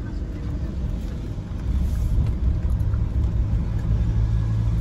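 Mahindra Thar driving on a narrow mountain road, heard from inside the cabin: steady engine and road rumble. It gets louder about two seconds in, and a steady engine hum comes up near the end.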